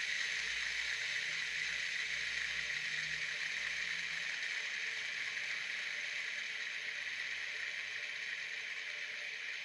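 An LED fidget spinner's 608 ball bearing whirring steadily as the spinner turns, slowly getting quieter as it spins down.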